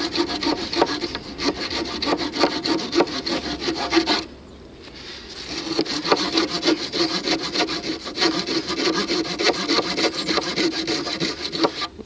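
Saw blade of a Victorinox RangerGrip 130 mm pocket knife rasping back and forth through a wooden pole in quick strokes. It breaks off briefly about four seconds in, then carries on.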